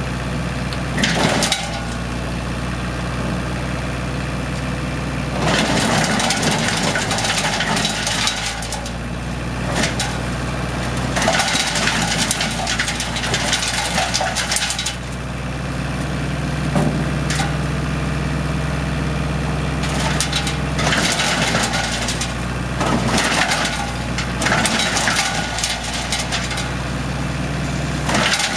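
Homemade wood chipper driven by a 40 kW diesel engine, running steadily while branches are fed in. Loud crunching and cracking of wood being chipped comes in repeated bursts of a few seconds each, and the engine note rises partway through.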